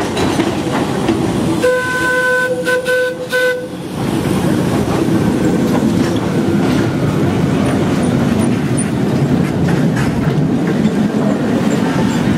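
Sóller tram sounding its horn, a single pitched tone held for about two seconds with a couple of short breaks near its end, starting a little under two seconds in. Then its wooden cars rumble and clatter past close by, wheels running on the street rails.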